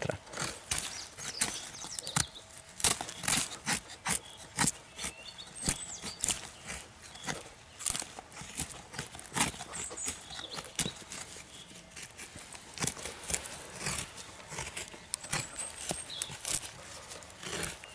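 A thin-bladed Skat knife in Kh12MF steel, with a 2.4 mm spine, shaving a dry stick into a feather stick: short scraping cuts along the wood, repeated at an irregular pace of about one or two a second.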